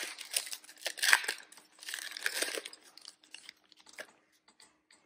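Foil trading-card pack wrapper being torn open and crumpled: a crinkling, crackling rustle, loudest at the start and again about a second in, that thins to a few scattered faint ticks over the last two seconds.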